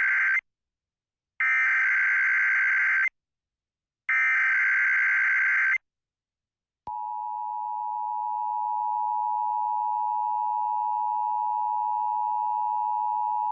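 Emergency Alert System relay over FM radio: the tail end of one SAME header burst, then two full bursts of screechy digital data tones, each about a second and a half long and a second apart. About halfway through, the steady EAS attention tone starts and holds.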